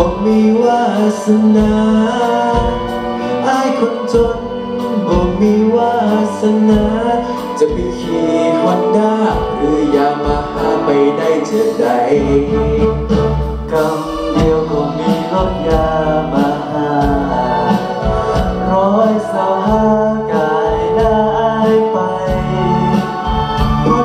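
A man singing a pop song into a microphone, amplified through the stage sound system and backed by a live band with electric guitar and keyboard.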